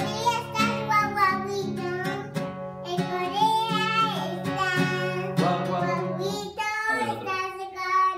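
Acoustic guitar strummed in steady chords while a young girl sings an improvised tune. The guitar stops about six and a half seconds in, and her singing carries on alone.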